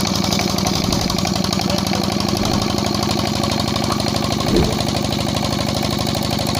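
Single-cylinder 'Peter' (Petter-type) diesel engine running steadily with a fast, even knock, freshly fitted with a new injector nozzle and plunger. A brief louder thud about four and a half seconds in.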